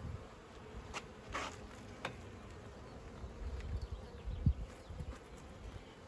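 Honey bees buzzing around an open hive, with a few light knocks from handling the hive and tools.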